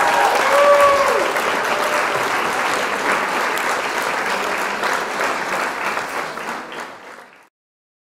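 Crowd applauding and cheering, with a few high calls in the first second, fading away near the end.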